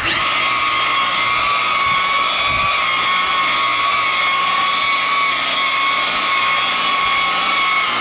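DeWalt electric rotary buffer with a foam pad running at speed against a car's painted hood, giving a steady high whine.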